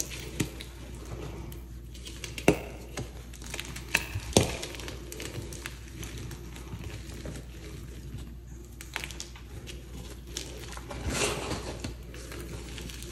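Soft reformed chalk blocks crushed and crumbled by hand: crisp crunching with a few sharp snaps in the first half and a burst of gritty crumbling near the end, over a steady low hum.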